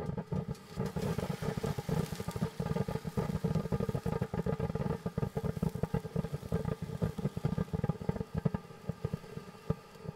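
'It's A Girl' ground fountain firework burning: a steady rushing hiss full of rapid crackling pops, thinning to scattered pops near the end as the fountain dies down.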